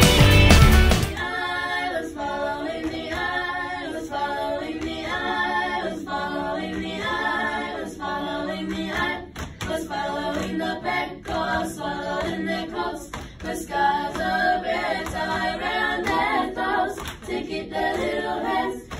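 Backing music stops abruptly about a second in. Then a girls' a cappella group sings unaccompanied in several-part harmony.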